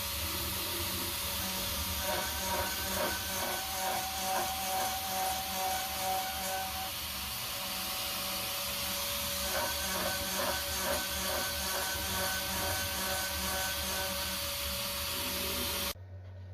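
CNC router spindle thread milling a 0.8 mm pitch M5 thread into steel: a steady loud hiss with several high whining tones, and stretches of rougher cutting noise about two and ten seconds in. It cuts off suddenly near the end.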